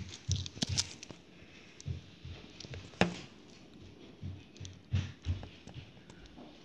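Gusty wind buffeting the microphone in uneven low thumps, with scattered clicks and one sharp knock about three seconds in.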